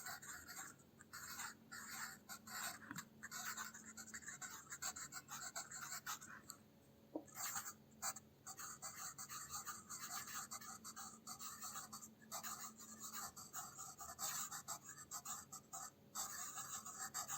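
Pencil lead scratching across paper in calligraphy strokes, a run of short and longer strokes with brief pauses between them.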